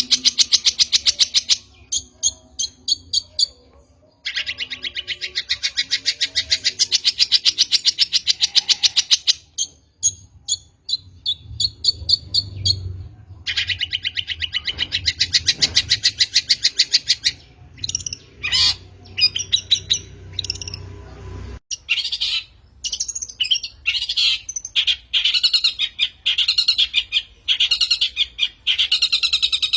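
Long-tailed shrike (cendet) song: loud, fast rattling chatter in bouts of a few seconds that start and stop abruptly, with short scattered notes between them. From about three quarters of the way through come more varied, spaced-out notes. It is a lure recording used to provoke other cendet into singing.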